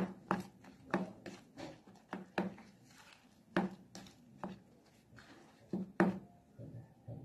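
Plastic dough scraper and hand chopping and folding sticky sweet-bread dough, lard and margarine into flour on a countertop: an irregular series of short dull knocks and slaps, about two a second with brief pauses.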